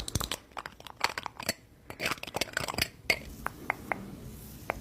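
Irregular quick clicks and crackles, with a short lull about a second and a half in.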